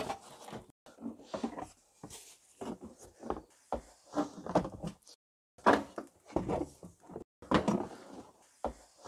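Moulded plastic wheel arch liner of a VW T5 van being flexed and pulled out of the rear wheel arch: a run of short creaks and scrapes, with the loudest about halfway through and again near the end.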